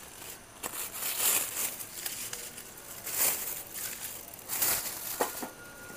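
Thin plastic bags crinkling and rustling as they are opened and filled by hand with shallots: several short rustles a second or so apart.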